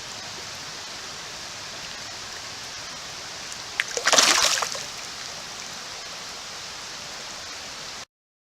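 Steady rush of creek water, with one loud splash about four seconds in as a bass is let go back into the creek. The sound cuts off abruptly near the end.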